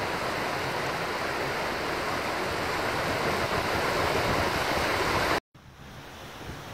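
Shallow, rocky stream rushing steadily over riffles. The sound cuts off abruptly a little over five seconds in, giving way to fainter outdoor background noise.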